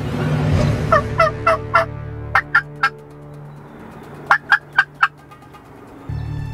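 Turkey calling: a quick run of about eight short, loud notes, then after a pause a second run of four or five. A low rumble sits underneath, stops about two and a half seconds in and returns near the end.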